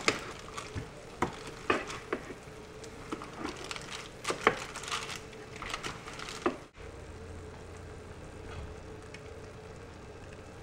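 Metal tongs clicking, knocking and scraping against a foil-lined metal baking sheet as broiled ribs are turned over: a string of sharp irregular clicks for about six seconds. After that only a steady low hum remains.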